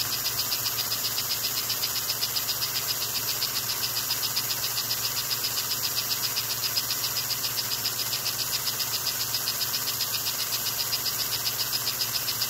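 American Flyer 287 steam locomotive running steadily, its small electric motor and gears whirring with a rapid, even pulsing of about six or seven beats a second.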